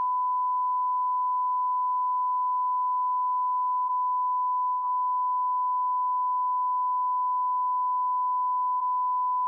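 Bars-and-tone test signal: a steady, pure, single-pitch line-up beep with a few tiny dropouts.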